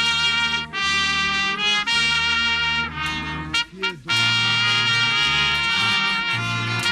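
Miners' brass band playing: trumpets and other brass hold full chords over a low bass line, with short breaths between phrases about a second in, near two seconds in and around the middle.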